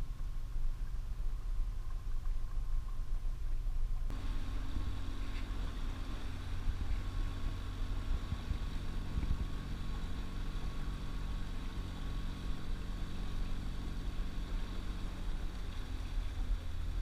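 Small boat's outboard motor running steadily under way, with water rushing along the hull. About four seconds in the sound changes abruptly from a low rumble to a louder, steady engine hum with several held tones.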